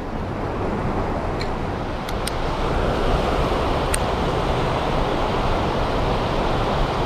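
Fast stream water rushing over rocks in shallow rapids: a steady, even rush, with a few faint ticks about two and four seconds in.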